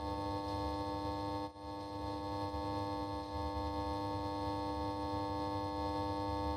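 Steady electronic drone of several held tones over a low hum, dipping briefly about a second and a half in.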